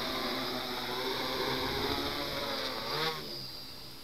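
X500 Reptile quadcopter's electric motors and propellers whining in a low hover, the pitch wavering with throttle corrections. About three seconds in the whine sweeps quickly upward, then the sound drops quieter.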